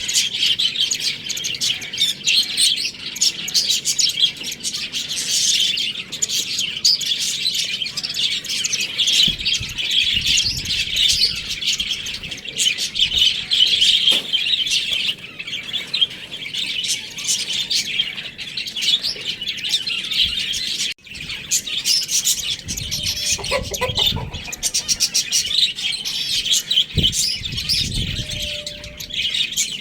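Many small birds chirping and chattering continuously, with a few low thumps and a brief break just after the middle.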